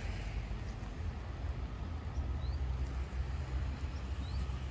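Low, steady rumble of a tram moving away along snowy tracks, with a few faint short chirps.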